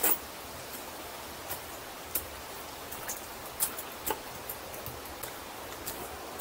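Footsteps on a rocky trail: short sharp steps at an uneven pace, about one a second, over a steady hiss.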